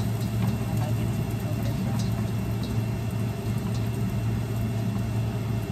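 Stir-frying in a hot wok, with a spatula clicking lightly against the pan now and then over a steady low hum.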